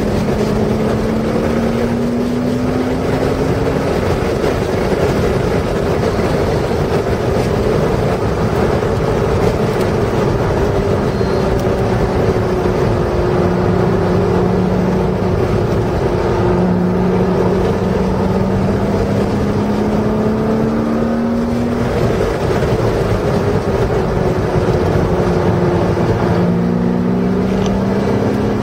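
Porsche engine under throttle on a race track, heard from inside the car: its note climbs slowly in pitch, drops back twice on lifts or shifts, and climbs again, over constant wind and tyre noise.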